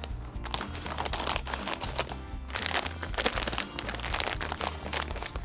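Clear plastic packaging of a bag of kinetic sand crinkling irregularly as it is handled and emptied, over background music.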